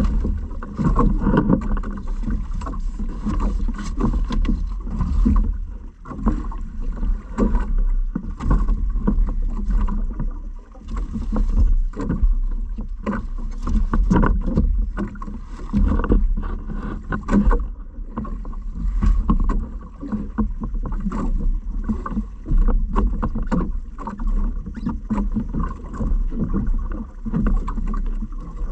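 Small boat out on the water: irregular splashes and knocks against the hull over a steady low rumble.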